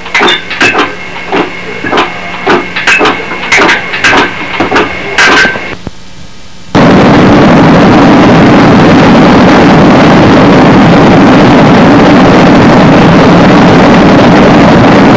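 Sharp clicks, about three a second, over a faint hum, then, about seven seconds in, a sudden switch to a loud, steady hiss: noise from a videotape whose picture is breaking up.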